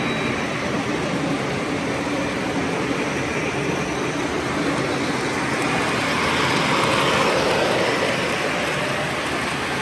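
Model trains running on a tabletop layout, a steady rolling rumble of wheels and motors on the track that swells a little about seven seconds in.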